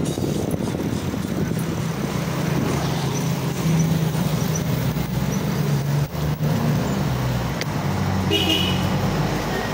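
Street traffic: motor vehicle engines running in a steady low rumble, with a short high-pitched toot of a vehicle horn near the end.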